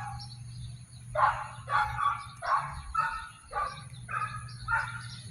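A dog barking repeatedly, about eight short barks at roughly two a second, over a steady low hum.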